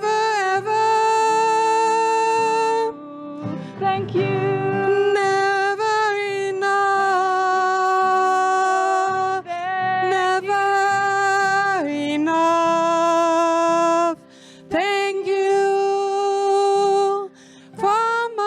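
A woman's voice singing a series of long held notes, with a slight waver, over acoustic guitar, with short breaks between the phrases.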